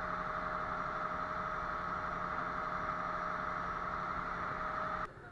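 Fishing trawler's engine running steadily, heard in the wheelhouse as a constant drone with a steady high whine. It cuts off suddenly near the end.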